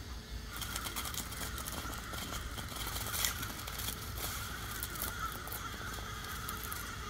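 RC rock crawler's brushless motor (Castle 2280kv Slate) and gear drivetrain whining unevenly at crawl speed as it climbs over rocks. Scattered clicks and crunches come from its tyres on stone and pine needles.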